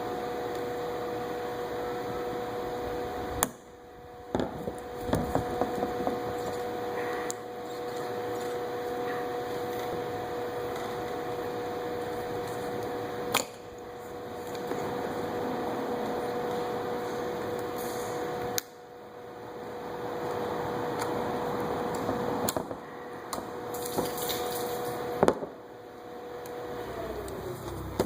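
A steady machine hum that winds down in pitch near the end, with several sharp knocks and clatters of tools and parts being handled on the removed fuel tank.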